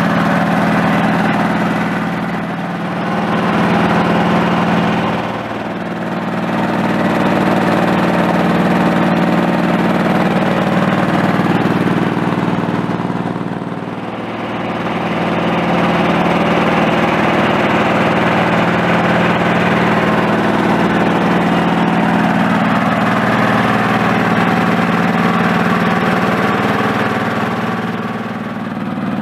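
Home-built compact tractor's engine running steadily at a constant speed. The sound dips briefly in loudness a few times.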